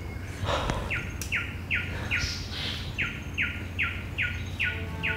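A bird calling in an evenly spaced series of short, falling notes, about two or three a second, over a low steady hum.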